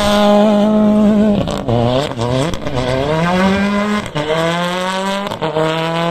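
Racing car engine at high revs, held steady and then shifting up through the gears several times, its pitch dropping sharply at each shift and climbing again.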